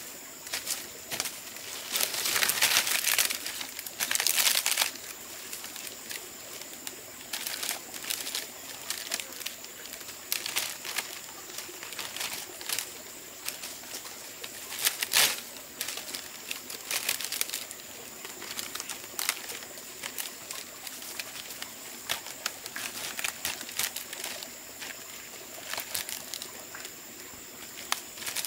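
Rustling and crackling with many scattered clicks. There are two louder rustling stretches a couple of seconds in and a sharp crack about halfway, all over a steady high-pitched tone.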